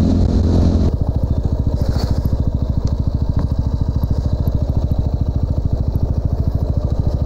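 TVS Apache RTR 200's single-cylinder four-stroke engine idling with a rapid, even thumping pulse; it takes over abruptly about a second in, after a steady sound cuts off.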